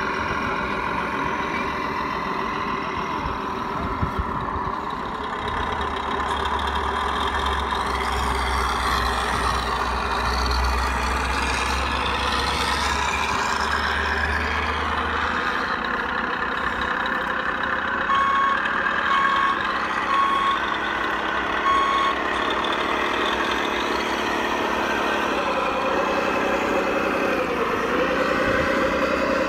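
Electronic truck-engine sound from RC model trucks running steadily, dipping in pitch now and then, with a deeper low hum joining for about ten seconds in the middle. A reversing alarm beeps four times, about a second apart, past the halfway point.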